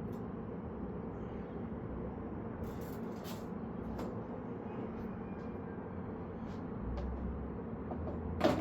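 Steady low background rumble, with a few light clicks and taps scattered through it and a sharper click near the end.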